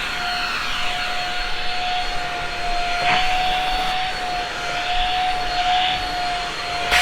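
Shark Rocket stick vacuum running while it cleans carpet edges: a steady high motor whine over the rush of suction air, its pitch holding constant throughout.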